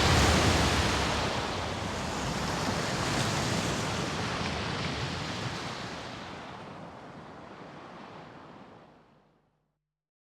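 Dramatic sound effect: the rushing, noisy tail of a heavy boom, dying away steadily over about nine seconds into silence.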